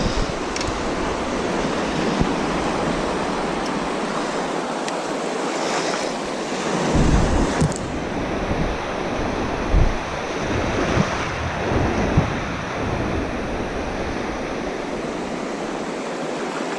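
Waves breaking and washing on the shore as a steady roar, with gusts of wind thudding on the microphone.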